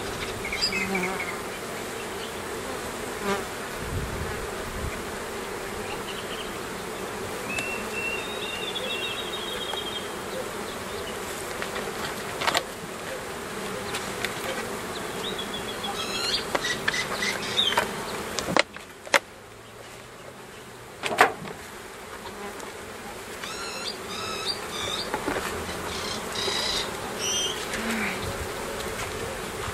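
Honeybees buzzing in a steady hum, with a few sharp knocks.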